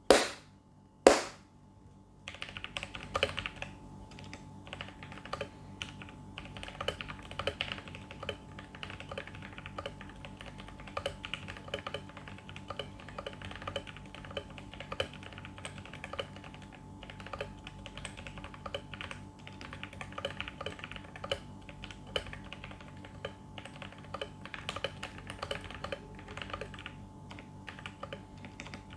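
Typing on a TKL mechanical keyboard with lubed Outemu orange tactile switches, the keys bottoming out in a fast, irregular run of clacks. Two loud sharp snaps come first, within the first second or so, before the typing starts.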